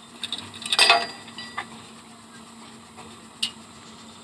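A few sharp metallic clinks and knocks, the loudest cluster about a second in and a single one near the end, over a faint steady hum.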